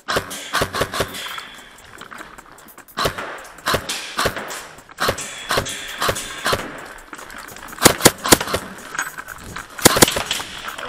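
Airsoft guns firing indoors: sharp, irregular single shots and short bursts, with the loudest shots about eight and ten seconds in.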